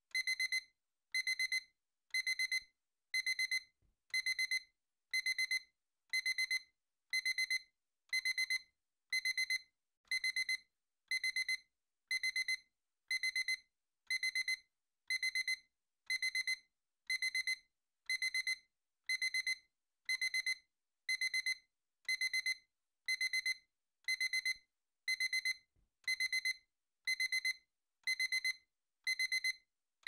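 Electric kitchen timer alarm going off: a quick cluster of high-pitched beeps repeating about once a second, steady and unchanging.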